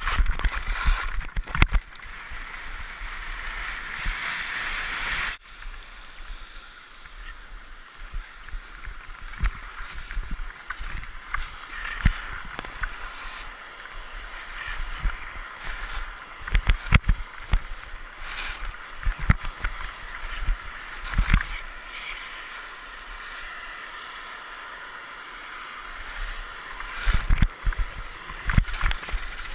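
Skis running and scraping over snow, a steady rushing noise heard through a helmet-mounted GoPro, with irregular sharp knocks as the skis hit bumps. The rushing drops off abruptly about five seconds in.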